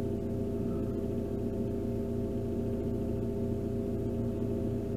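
JCB 535 telehandler's diesel engine idling steadily, a constant hum of several even tones, heard from inside the cab.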